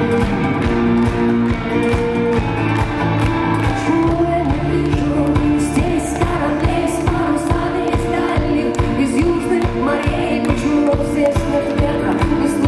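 Live rock band playing a slow song with acoustic guitar, bass and cymbals; a singing voice comes in over the band in the second half.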